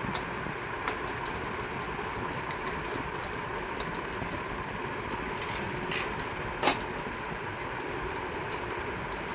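Steady background hum with scattered light clicks and taps, and one sharper knock about two-thirds of the way through.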